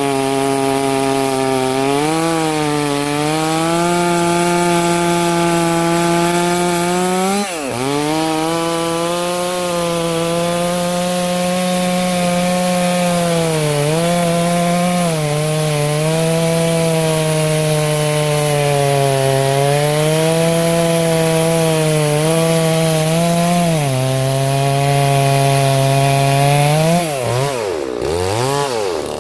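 Farmertec Holzfforma G660 two-stroke chainsaw at full throttle, its 36-inch bar buried in a cut through a dry hardwood log, the engine note sagging briefly a few times under the load. Near the end the bar comes out of the cut and the engine pitch swings rapidly up and down.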